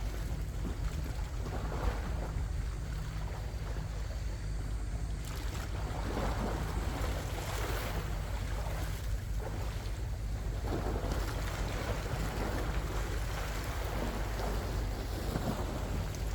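Sea waves washing in swells, over a steady rumble of wind on the microphone.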